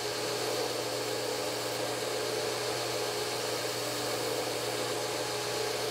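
Belt grinder running steadily, its motor and abrasive belt giving an even whir with a held hum, as the back of a Ruger 10/22 bolt is rounded on it.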